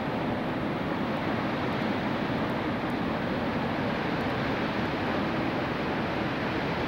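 Steady rushing of water cascading over the terraced concrete steps of a large outdoor fountain.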